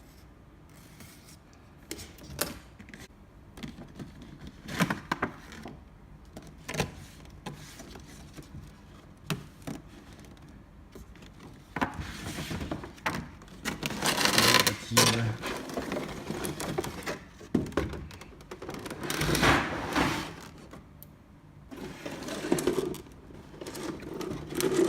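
A figure's cardboard box and packaging being handled and opened by hand: scattered taps and knocks, with longer rustling scrapes about halfway through and again a few seconds before the end.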